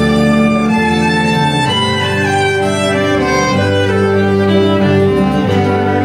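Violin playing a bowed melody over an accompaniment of sustained low bass notes and chords that change about every two seconds.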